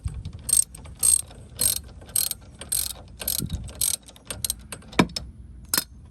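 Ratchet wrench clicking in short strokes, about two a second, as a hard-to-reach oil cooler drain fitting is loosened, then quicker clicks and a sharp knock about five seconds in.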